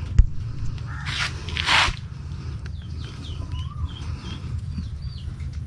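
Two short rustling swishes as the netting of a fish trap is folded and handled, then a run of short high bird chirps over a steady low hum.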